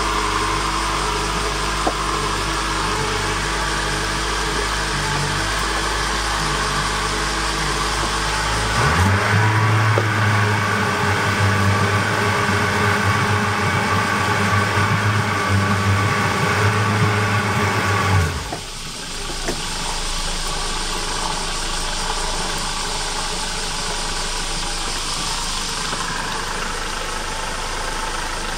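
Yamaha 115 hp outboard motor running at idle. About nine seconds in it speeds up to a faster, louder steady run. About nine seconds later it drops back to idle.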